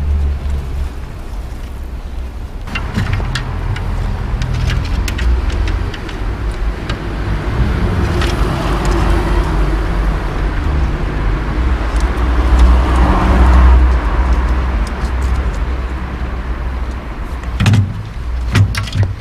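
Street traffic: a car running close by, its rumble swelling to a peak a little past halfway and then easing off. Over it come scattered light clicks and rattles of a bicycle rear wheel and chain being handled and refitted, with a few sharper knocks near the end.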